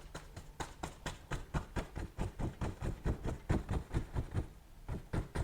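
A 2-inch paint brush stroking and tapping against a stretched oil-painting canvas in short, quick strokes, about four a second, with a brief pause near the end.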